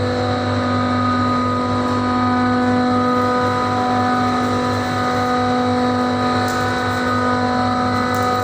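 Chiller plant room machinery running with a steady, loud drone: a deep hum with several steady higher tones above it.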